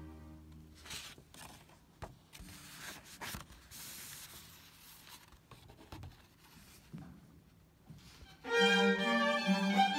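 A string orchestra's held chord dies away, followed by several seconds of faint rustles and small knocks. Near the end the strings come back in loudly with a new passage.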